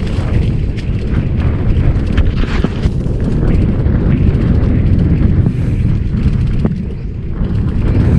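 Off-road motorcycle ride heard through heavy wind buffeting on the camera microphone: a loud, steady low rumble with the engine buried in it, and a few sharp knocks from the rough trail.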